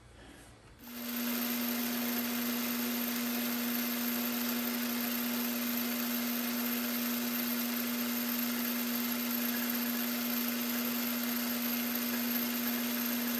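Metal lathe starting up about a second in and running steadily with an even hum and a faint high whine, its chuck spinning as the tool takes a facing pass across the end of the bar stock.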